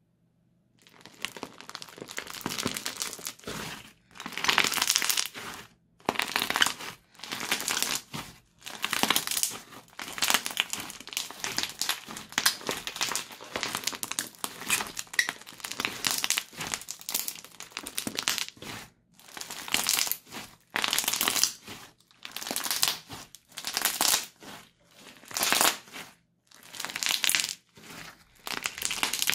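Hands squeezing and kneading a thick crunchy slime studded with small beads. Each press gives a burst of crackling and popping, starting about a second in and recurring every second or two.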